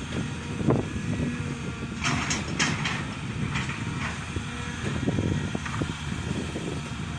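Excavator's diesel engine running steadily, with a few short clatters about two to four seconds in.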